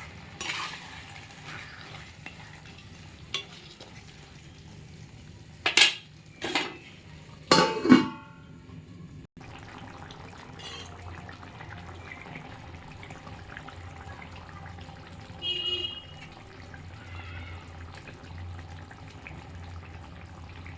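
Metal cooking pots and utensils clattering a few times, the last and loudest clatter ringing briefly, then a low steady hum with a short metallic ring.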